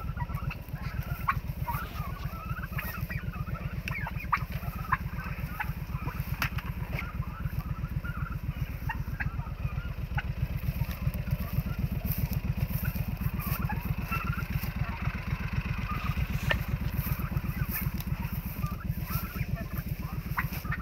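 Turkeys calling and peeping in short scattered notes over the steady low pulsing of an idling utility-vehicle engine, with a few sharp knocks and clicks.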